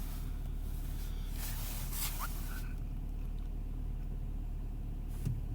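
2010 Nissan Altima engine idling with a steady low hum. The idle is smooth, and the scan tool shows zero misfire counts after two failed ignition coils were replaced.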